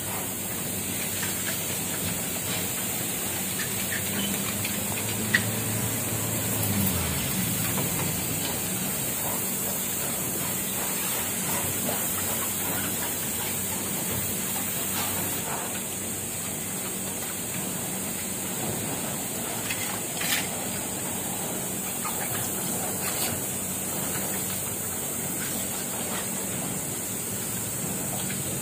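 Water spraying from a garden hose nozzle onto a glass door and tile floor: a steady hiss, with a few light knocks.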